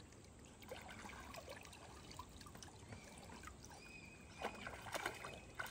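Faint lapping and light splashing of shallow pond water stirred by a swimming emu and a wading person, with small scattered drips and ticks and a few slightly louder splashes near the end.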